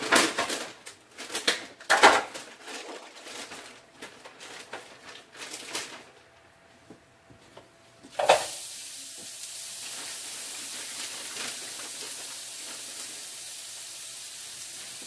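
Knocks and clatter of pans and utensils, then about eight seconds in a thump as food goes into a pan of hot olive oil and starts a steady frying sizzle.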